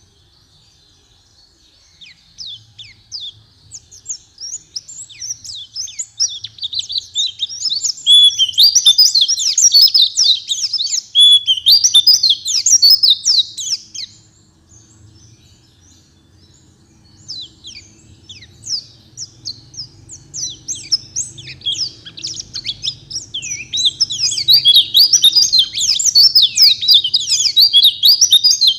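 White-eye (pleci) song: rapid, high twittering chirps in two long runs, with a pause of a few seconds around the middle.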